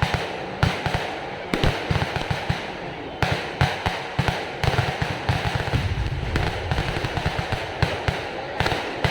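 Festival fireworks display: firecrackers going off in a rapid, irregular string of bangs and low thuds, several a second, thickest about six seconds in.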